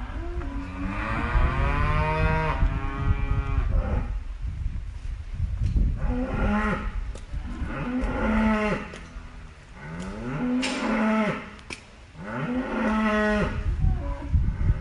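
Cattle mooing: one long call that falls in pitch, then a series of about five shorter moos, over a steady low rumble.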